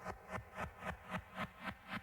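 Soft intro of background music: a steady pulsing beat of about four soft hits a second.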